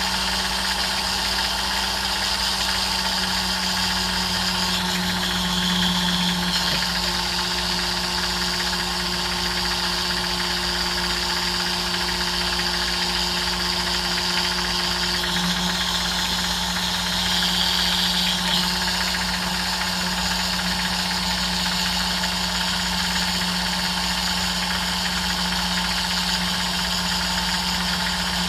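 Small electric rotary tool running steadily as it smooths a freshly welded jewelry clasp, its high whine changing a few times as the bit bears on the metal.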